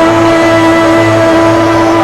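Worship music: one loud chord held steady without change.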